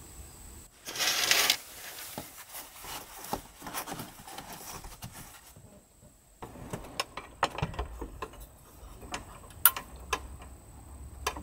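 Small handling sounds inside a camper van: scattered clicks, taps and rubbing, with a short loud rush of noise about a second in. A few sharp clicks near the end come as a hand works a hurricane-style lantern on the window ledge.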